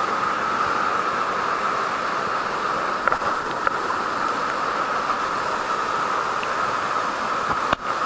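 Steady rush of a waterfall plunging into a pool, an even hiss with a couple of small clicks about three seconds in and a brief dropout near the end.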